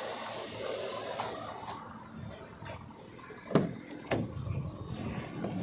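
Car door being opened, with two clunks about half a second apart a little past the middle, over a faint steady outdoor background.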